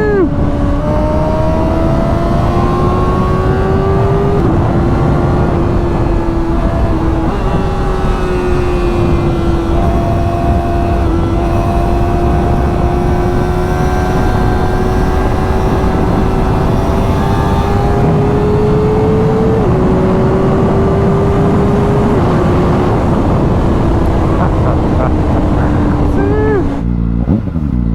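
Kawasaki ZX-4RR's 399 cc inline-four running through a Graves carbon slip-on exhaust while riding. The engine note climbs slowly under throttle, steps down several times at gear changes, and dips and swoops briefly near the end.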